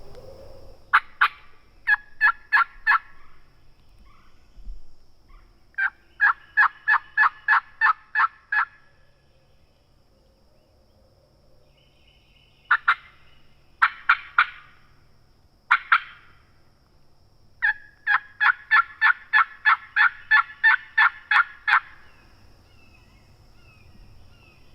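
Turkey calling: four loud runs of short, sharp, evenly spaced turkey notes at about four or five a second, with a pause of a few seconds between runs.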